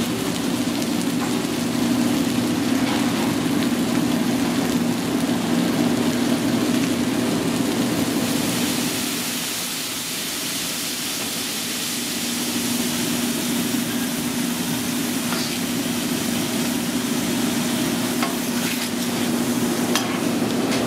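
Chopped steak sizzling on a flat-top griddle, a steady frying hiss over a steady low hum.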